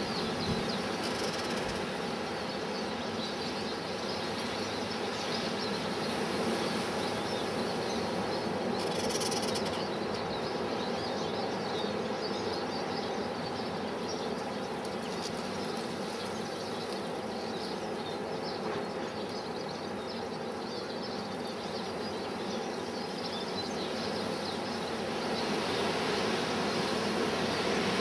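Strong wind rushing steadily, swelling a little now and then.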